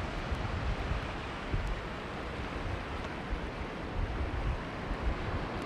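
Ocean surf washing over a rocky cobble shore, a steady hiss of waves, with some wind buffeting the microphone and a few faint clicks.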